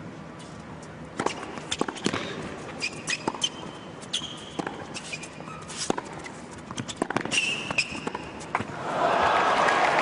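Tennis rally: a string of sharp racquet strikes and ball bounces with short shoe squeaks on the hard court, then crowd applause breaking out near the end as the point finishes.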